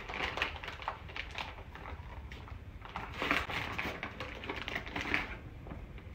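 Wrapping paper crinkling and tearing as a gift is unwrapped by hand: a dense run of crackles and rustles, loudest just at the start, about three seconds in and about five seconds in.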